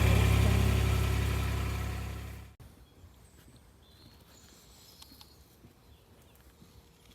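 Farm vehicle engine idling with a steady low rumble that fades over about two seconds, then cuts off abruptly to quiet outdoor background with a few faint high chirps.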